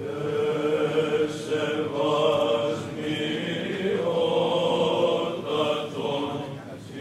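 Byzantine chant sung by a choir of church chanters (psaltes): slow, drawn-out melodic lines held over a steady low note.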